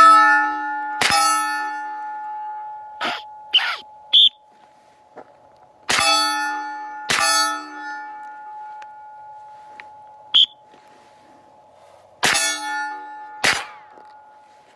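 Three double taps from a 10mm Glock pistol fired with a suppressor, each pair of shots about a second apart and the pairs about six seconds apart. A ringing metallic clang lingers after each pair, from steel targets being hit. A few lighter clinks fall between the pairs.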